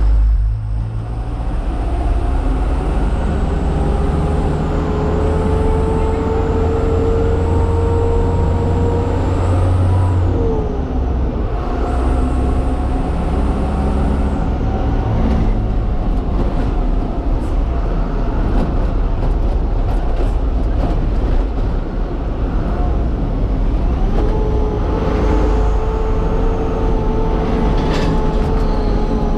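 Truck engine running on the move, a steady low rumble with a whine on top that slowly rises in pitch, breaks off about ten seconds in and comes back at a new pitch near the end, as with gear changes.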